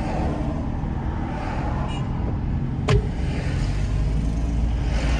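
Steady car road and engine noise heard from inside the cabin while driving, with a single sharp knock about three seconds in.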